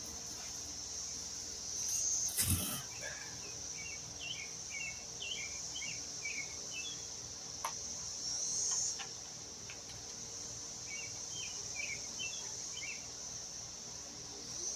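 Insects trilling steadily and high-pitched, with two short runs of bird chirps. A brief rustle and knock about two seconds in and a single click later, from handling parts or tools.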